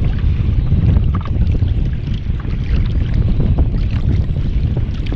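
Wind buffeting the microphone with a steady low rumble, and small waves lapping and slapping against the hull of a fishing kayak on choppy sea.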